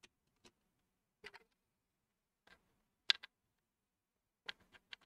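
Light plastic clicks and taps as the two halves of a plastic model ship hull are pressed and handled together in a test fit, scattered irregularly, the loudest about three seconds in and a quick run of three clicks near the end.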